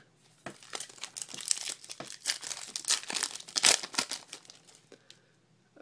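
Foil trading card pack wrapper being torn open and crinkled by hand, a dense crackling of many short sharp rustles that dies away near the end.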